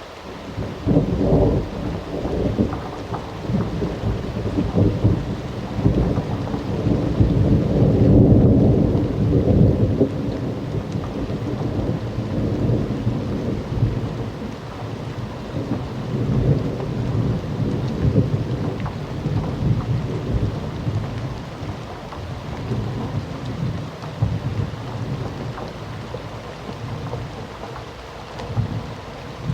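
Thunderstorm: steady heavy rain with a long roll of thunder that rises about a second in, is loudest around a third of the way through, then rumbles on more softly.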